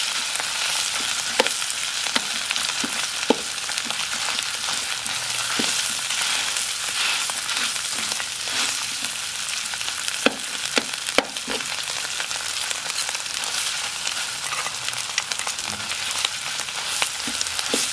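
Sliced garlic, chili and shrimp paste sizzling in hot oil in a steel wok, with a metal spatula stirring and now and then clicking and scraping against the pan.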